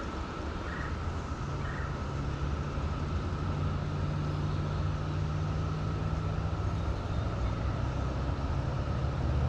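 Low, steady engine drone made of several held tones, growing slowly louder.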